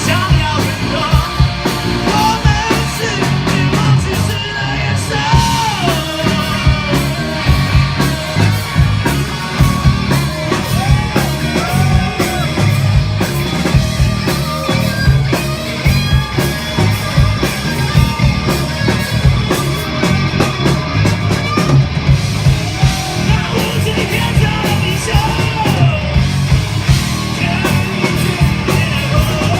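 Live rock band playing loud and dense, with distorted guitars, a pounding drum kit and bass, and a singer shouting and singing over them.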